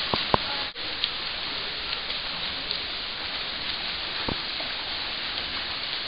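Steady noise of splashing water in a swimming pool, with a few brief sharp knocks.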